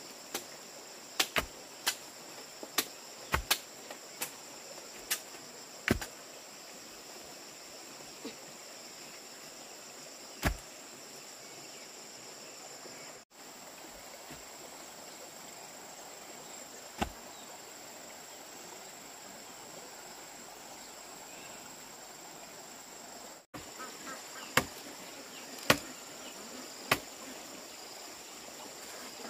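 A steady, high-pitched chorus of insects, with sharp irregular knocks, like chopping or striking wood. The knocks come in a quick cluster over the first six seconds, then occasionally, then a few more near the end.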